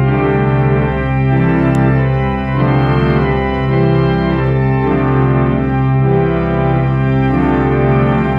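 Restored 90-year-old Moeller pipe organ playing by itself through its playback system: full sustained chords that change about once a second over a steady held bass.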